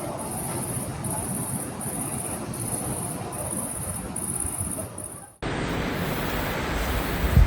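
Insects chirping in an even, pulsing rhythm over a background of rushing noise. About five seconds in, the sound cuts abruptly to louder rushing noise, with a low rumble swelling near the end.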